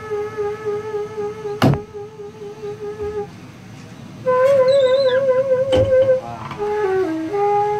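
Daegeum, the Korean transverse bamboo flute, playing a slow melody: a long held note with a wavering vibrato, a short lull, then a higher note with wide vibrato, then a few notes stepping down. Two sharp clicks cut in, about a second and a half in and again near six seconds.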